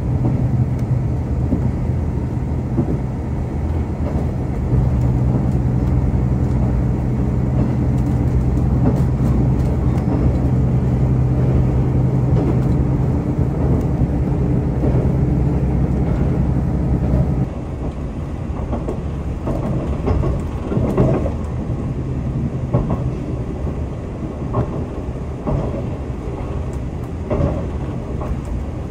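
KiHa 185 series diesel railcar running, heard from inside the train: a steady engine drone under power that cuts off abruptly about two-thirds through, leaving quieter wheel-and-rail running noise with clicks over the rail joints.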